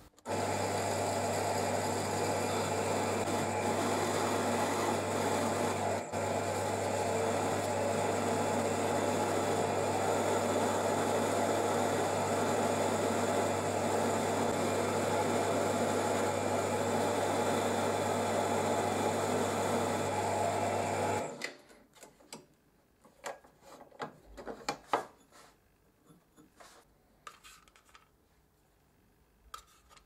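Bench drill press motor starting and running steadily with a low hum, spinning a fire piston's metal rod while a file is held against the rod's tip to cut an O-ring groove. The motor switches off about 21 seconds in, and light clicks and taps of handling follow.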